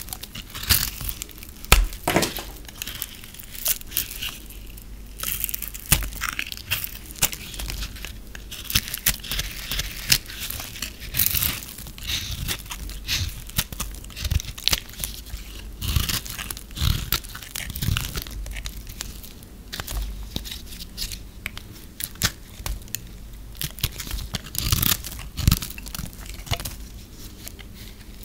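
A knife blade shaving and cutting hard, dry bars of soap, with crisp crackling and crunching as flakes break off. The scraping strokes are irregular, with sharp snaps now and then.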